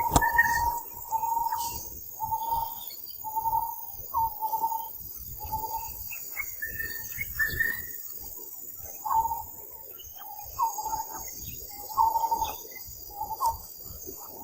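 Insects calling in repeated short pulses at one steady pitch, with a few higher bird chirps.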